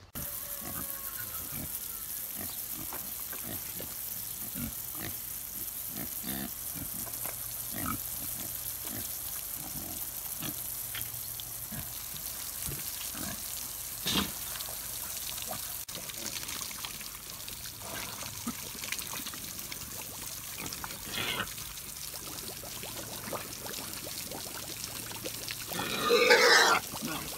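American Guinea hogs grunting in a mud wallow while a garden hose sprays water onto them with a steady hiss. Near the end a louder run of pitched pig calls comes close up.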